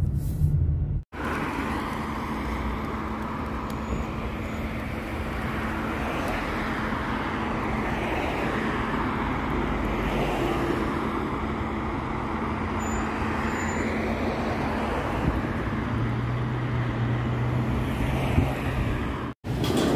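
Road traffic on a wide multi-lane street: cars passing one after another, their tyre and engine noise swelling and fading. A low engine hum comes in near the end as a vehicle goes by.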